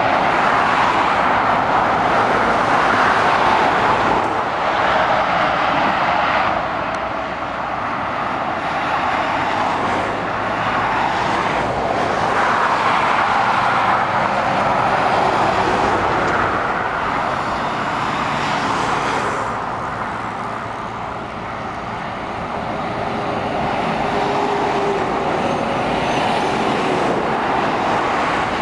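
Road traffic on a dual carriageway: lorries and cars passing, a continuous tyre and engine noise that swells as each heavy vehicle goes by and eases between them.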